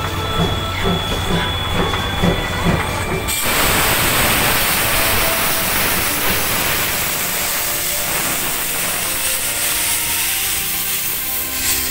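C58 steam locomotive pulling away, its exhaust chuffing about twice a second with steam hissing. About three seconds in, a loud hiss of steam cuts in, then the coaches roll past with clicking wheels.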